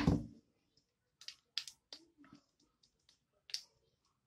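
Eating king crab by hand: a dull thump at the start, then a scattering of short sharp clicks and smacks from mouth sounds and crab shell being pulled apart.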